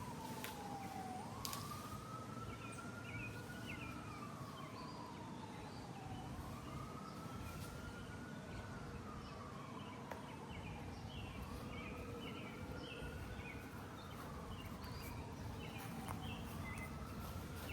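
An emergency-vehicle siren wailing faintly, its pitch rising slowly and then falling in long sweeps, each rise and fall taking about five seconds, over steady outdoor background noise.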